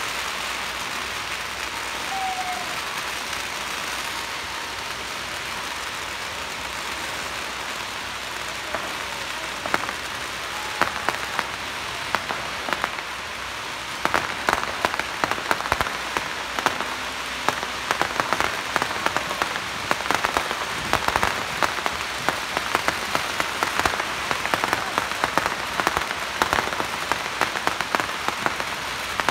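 Strings of firecrackers going off in a dense, continuous crackle, with sharper, louder bangs coming thick and fast from about halfway through.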